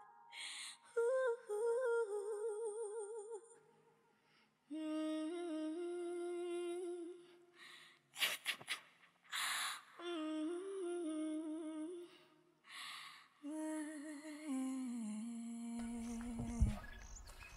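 A voice humming a slow, mournful melody in long held notes with vibrato, phrase by phrase with short breaths between, the last note sliding down and stopping. A low rumble comes in near the end.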